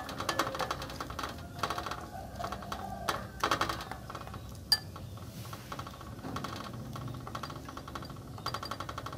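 Metal spoon and chopsticks stirring and tapping in a ceramic bowl, working shredded banana blossom into thick frying batter: a run of light clinks and scrapes in bunches, with one sharp clink a little under five seconds in.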